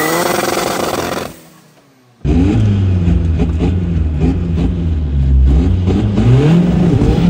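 VW Polo TDI engine revving repeatedly, its pitch sweeping up and falling back several times. The sound drops away for under a second about a second and a half in, then the revving resumes.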